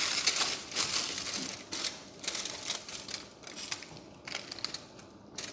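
Chopped potato, capsicum and onion being pushed by hand into a raw whole chicken: irregular crunchy rustling and small crackles, busiest in the first second or two and thinning out toward the end.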